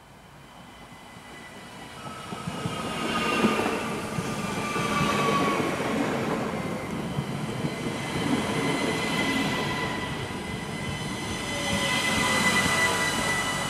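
ÖBB Cityjet electric multiple unit running in along the platform, growing loud about two seconds in as it passes close by. Its motor whine slides down in pitch as it slows, over wheel rumble and a steady high squeal.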